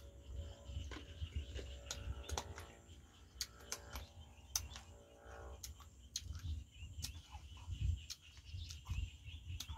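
Close-up chewing of a small sour green fruit: irregular crisp clicks and mouth smacks, over a faint steady insect drone and low wind rumble on the microphone.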